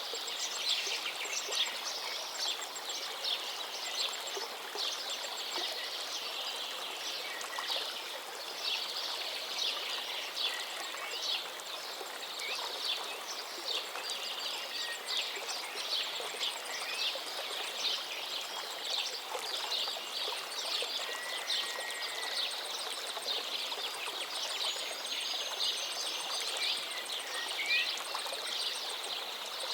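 A forest stream babbling and splashing steadily, with a few brief bird whistles over it and a faint, fast, high-pitched trill in the second half.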